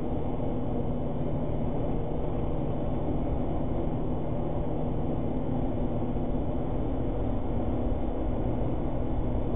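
Steady engine and road noise heard inside the cab of a cash-in-transit vehicle cruising at about 90 km/h, an even rumble with no changes.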